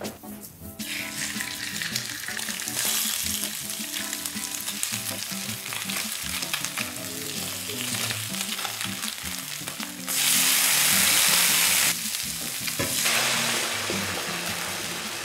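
Pieces of fish frying in olive oil in a skillet, a steady sizzle while they are turned with a wooden spatula. About ten seconds in the sizzling surges louder for roughly two seconds.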